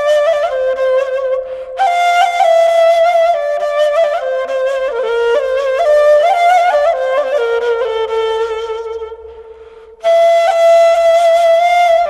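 Background music: a solo flute playing a slow melody that slides between notes. The phrase fades out about nine seconds in and a new one begins at ten.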